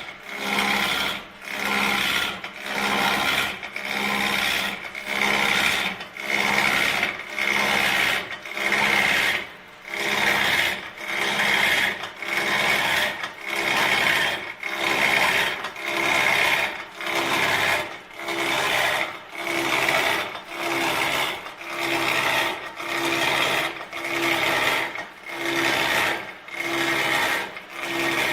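Metal lathe cutting in a steady rhythm of rasping strokes, about one a second. A low hum underneath shifts higher about two-thirds of the way through.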